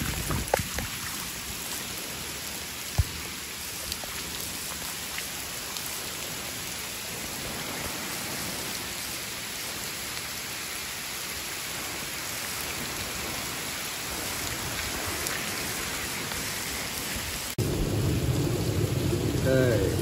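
Steady heavy rain falling, with a couple of sharp knocks in the first few seconds. About 17 seconds in it cuts abruptly to louder, fuller rain falling on a swimming pool and its concrete deck.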